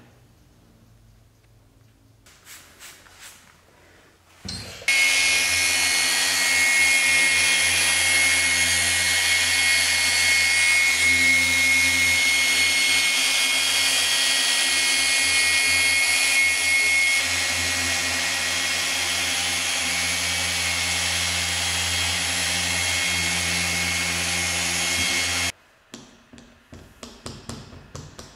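Small cordless rotary sander with a fine P1500 sanding disc, running steadily against a fogged plastic headlight lens as a steady whine over a low hum. It starts about five seconds in and stops a few seconds before the end, followed by a few light clicks and knocks.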